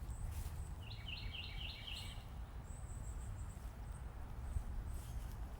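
Garden ambience: a bird calls a quick run of about six repeated notes about a second in, over a low steady rumble of wind on the microphone, with faint high chirps here and there.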